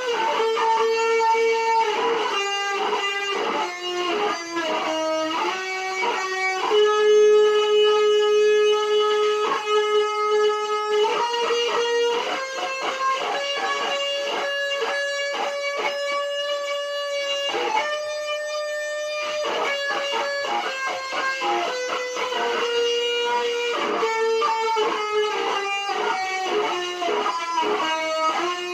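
Les Paul-style electric guitar playing a lead: melodic single-note lines, with long held notes in the middle and quicker runs of notes near the start and the end.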